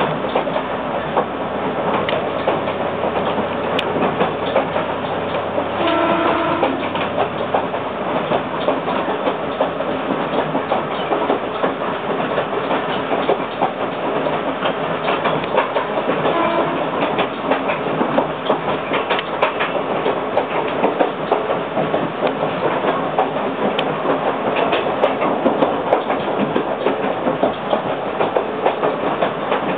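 Ex-Kintetsu 16000 series electric train running, heard from inside the car: a steady rumble with wheels clicking over rail joints. A short pitched tone sounds about six seconds in.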